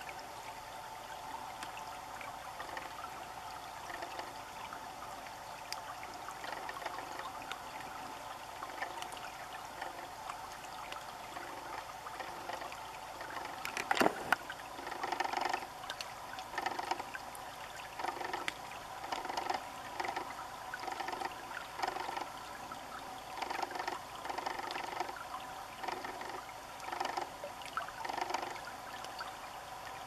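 Shallow creek water trickling steadily. A sharp knock comes about halfway through, and after it a run of short splashes about once a second as an American dipper bathes in the shallows.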